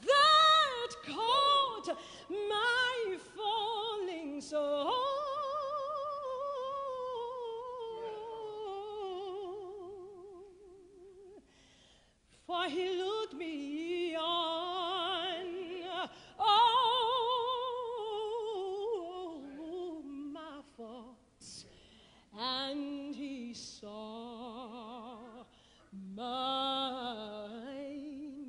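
Operatic soprano voice singing slow phrases with a wide vibrato, without the piano. One long phrase drifts gradually down in pitch, and there are short breaths between phrases about twelve and twenty-one seconds in.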